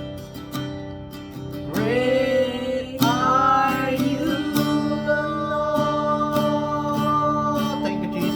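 Acoustic guitar strumming chords, with a voice singing long held notes over it.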